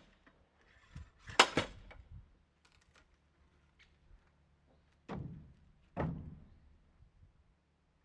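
Hard wooden knocks: a loud sharp double knock about one and a half seconds in, then two duller thunks about a second apart later on, like split firewood being knocked together or set down.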